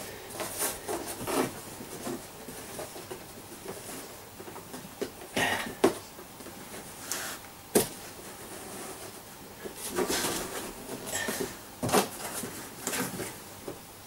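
Large cardboard box being handled and prised open: rustling and scraping of cardboard, broken by scattered sharp knocks at irregular intervals.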